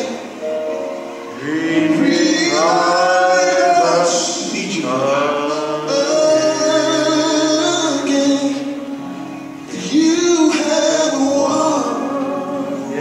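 Gospel song with a male voice singing long, held phrases over music.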